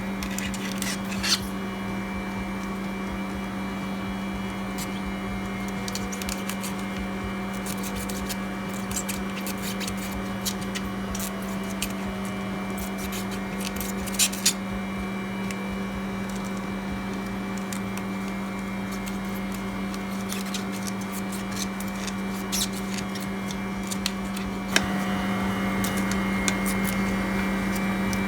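Steady electrical machine hum with a strong low tone. It is overlaid by scattered small clicks and a few sharper taps, about a second in, twice around fourteen seconds and near the end. The hum steps up louder a few seconds before the end.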